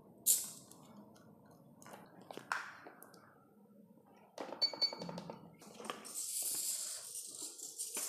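Clicks and taps of fingers on the buttons of a Flysky FS-i6X radio transmitter, with a short buzzing sound about four and a half seconds in, then rustling handling noise from about six seconds on.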